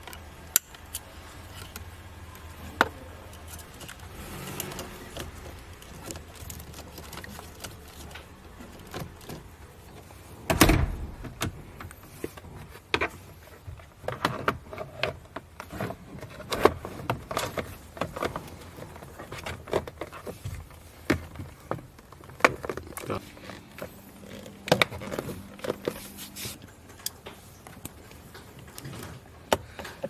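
Irregular clicks, taps and knocks of hands working on a car's steering column: wiring connectors and plastic column trim being handled and fitted around the ignition lock cylinder, with one louder thump about ten seconds in.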